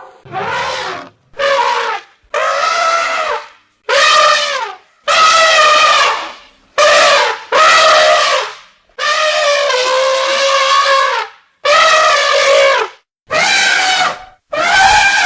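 Elephant trumpeting, about eleven loud, brassy calls in quick succession, each lasting half a second to two seconds, some bending in pitch, with short breaks between them.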